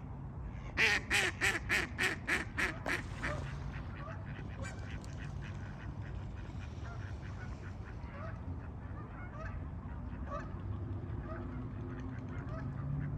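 Canada geese honking: a quick run of about eight loud honks, roughly three a second, in the first few seconds, then fainter scattered honks from the flock.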